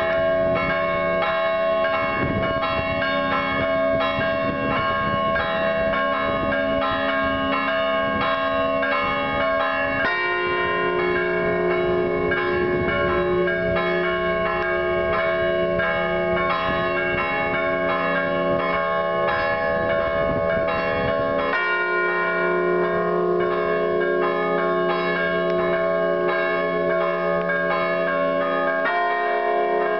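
Church bells ringing a continuous festive peal of rapid, overlapping strokes. The set of notes changes about ten seconds in, again about two-thirds of the way through, and once more near the end.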